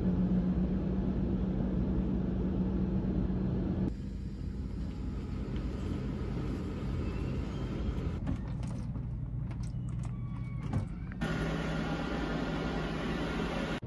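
Steady low mechanical hum, like building machinery or ventilation. It changes abruptly about four seconds in and again about eleven seconds in, with a few faint ticks in between.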